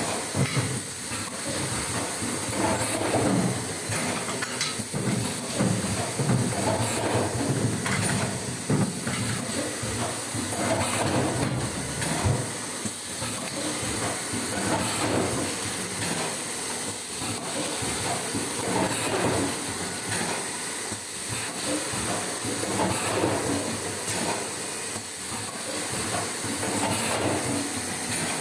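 Paper bowl moulding machine running, with a steady hiss and continual irregular mechanical clatter.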